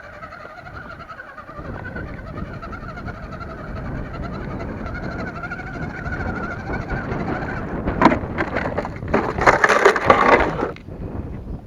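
RC crawler's electric motor and gears whining, the pitch wavering as the load changes, over wind rumble on the microphone; about eight seconds in the whine gives way to a louder stretch of clattering and rattling for about three seconds.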